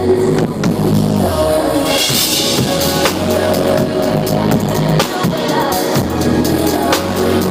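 Drum kit played with busy, rapid hits and cymbal crashes over loud backing music with a heavy bass line; a cymbal wash rings out about two seconds in.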